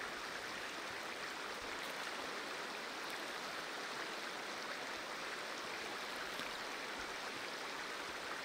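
Shallow, rocky stream running over stones: a steady rush of water.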